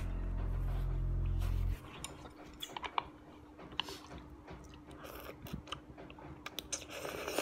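Close-up eating sounds of udon noodles eaten with chopsticks: chewing with scattered small clicks and mouth smacks, a little louder near the end as noodles are drawn into the mouth. A low, steady background music bed cuts off suddenly about two seconds in.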